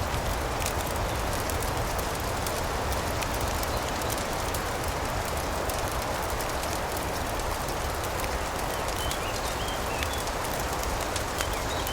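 Ambience mix of a fireplace crackling over a steady rush of rain, with a low rumble underneath. A few faint chirps come near the end.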